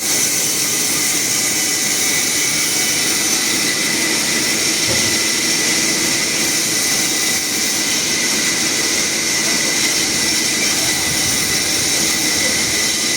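Sawmill machinery running steadily: a loud, continuous rushing noise with a steady high whine.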